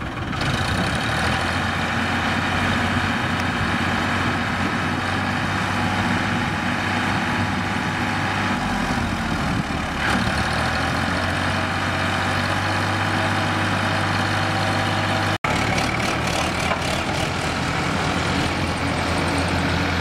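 Farmtrac tractor's diesel engine running steadily while pulling a loaded mud trolley. About three-quarters of the way through the sound drops out for an instant, and a tractor engine then runs on.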